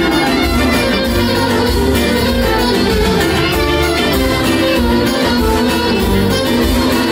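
Live Greek band playing a tune on violin and clarinet with keyboard accompaniment, over a steady beat in the bass.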